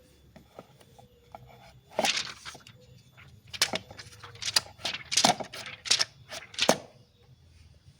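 Plastic phone soft case being handled and pressed onto a smartphone: about eight sharp clicks and snaps, beginning about two seconds in.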